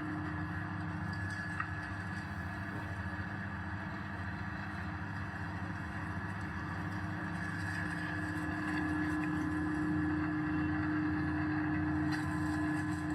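Dry powder grinding mill running steadily: a motor hum with a constant whine, getting a little louder about two thirds of the way through.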